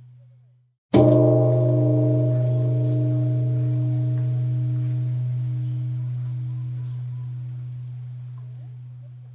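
Large temple bell struck once about a second in, ringing with a deep hum and several higher tones that fade slowly over about eight seconds. The last of the previous stroke's ringing dies away just before it.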